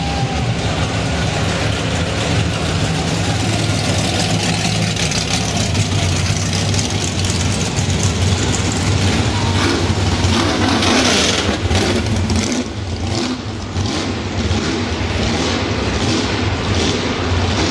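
Muscle car engines rumbling and revving as the cars drive past, with a steady low rumble throughout.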